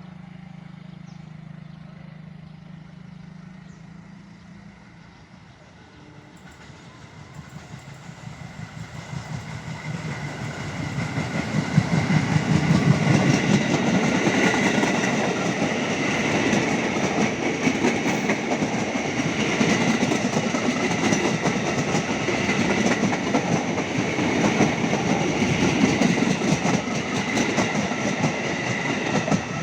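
A train approaching and passing close by at speed. Its sound builds over the first dozen seconds into a steady rumble of wheels on rails, with rapid clickety-clack and a faint high ringing tone.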